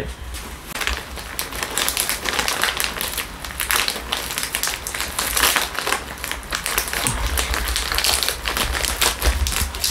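Plastic packaging crinkling and crackling as it is handled, without a break.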